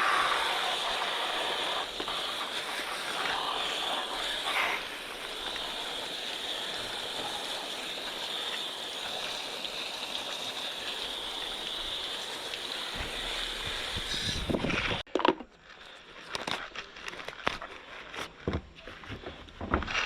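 Steady hiss of water spraying onto a motorcycle as it is rinsed, cutting off suddenly about fifteen seconds in. Scattered scrapes and knocks follow.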